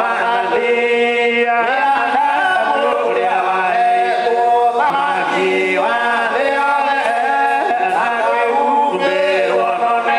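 Group of men singing a hymn together, unaccompanied, in long held notes that move from note to note, the leader's voice carried through a microphone.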